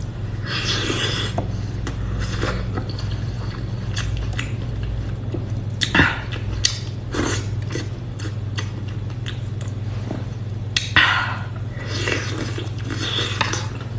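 Close-up eating sounds: chewing and biting on grilled oyster skewers in garlic sauce, with scattered wet clicks and a couple of longer hissy slurps, about a second in and near the end, over a steady low hum.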